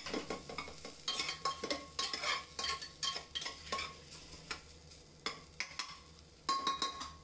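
Metal spatula stirring and scraping chopped onions frying in oil in a pressure cooker: irregular scraping strokes against the pot over a light sizzle, pausing for about a second near the end. The onions are being sautéed until brown.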